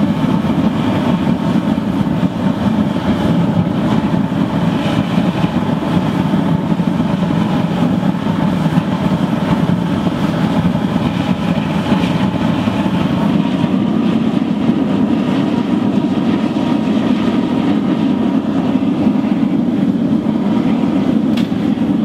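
Drip-feed waste-oil burner with blown air firing into a 60-litre steel drum furnace: a loud, steady, deep rumble of burner flame and air that does not let up.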